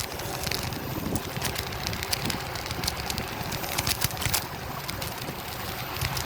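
Riding noise from a Bird electric scooter in motion: a steady low rumble of the wheels over pavement and air rushing past the microphone, broken by frequent small clicks and knocks. The scooter's motor itself is barely audible.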